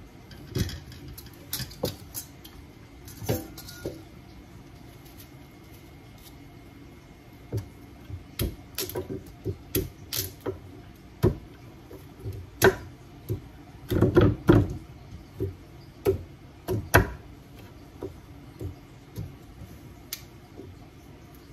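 Kitchen knife cutting pumpkin on a wooden cutting board: irregular knocks of the blade against the board. A few come at first, then after a pause a long, dense run that is thickest about two-thirds of the way through and thins near the end.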